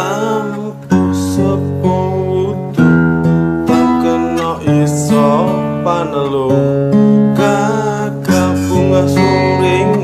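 A man singing a slow, ornamented Javanese kidung melody, accompanying himself on a strummed acoustic guitar with chord changes every few seconds.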